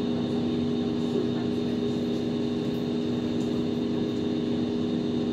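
Steady hum inside a Hong Kong Light Rail car, with a few low held tones and a faint high whine over a constant rumble.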